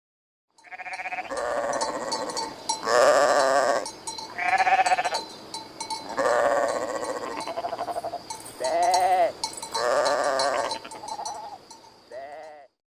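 Farm animals bleating: about eight drawn-out calls one after another, some wavering in pitch, with a faint steady high tone underneath.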